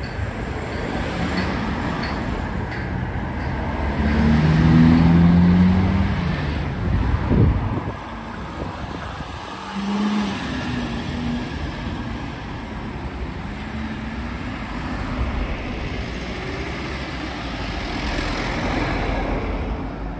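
Road traffic, with a motor vehicle's engine passing close and loudest from about four to seven seconds in.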